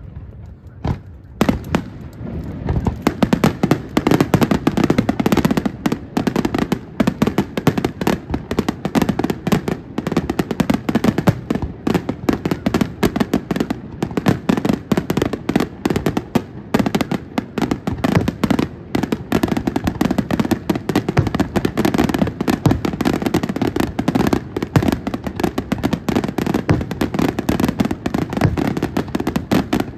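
Aerial fireworks display: a few separate bangs, then from about two seconds in a dense, continuous barrage of shell bursts and rapid crackling reports.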